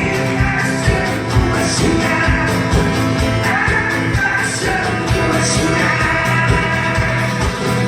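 Rock-style music with a steady drum beat and sustained instrumental tones.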